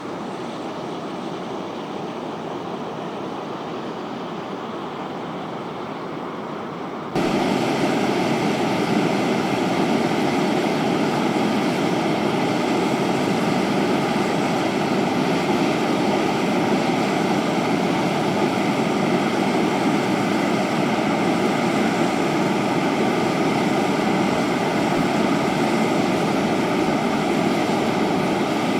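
Steam vent (fumarole) hissing and roaring steadily like a jet. It gets abruptly louder and brighter about seven seconds in.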